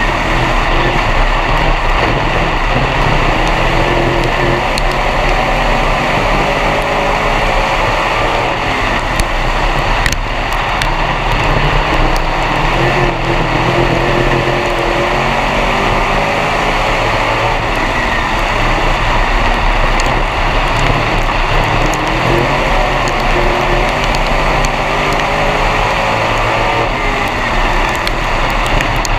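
B-Mod dirt track race car's engine heard from inside the cockpit, running steadily with its pitch rising and falling, over rattle and road noise. A single sharp knock about ten seconds in.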